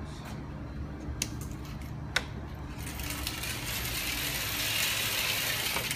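A patio enclosure curtain being drawn closed along its overhead track: two sharp clicks about a second apart, then about three seconds of steady sliding noise as it runs across the opening.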